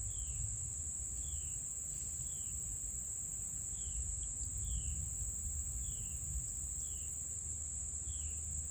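Steady high-pitched drone of insects in a swamp, with a bird repeating a short falling chirp about once a second.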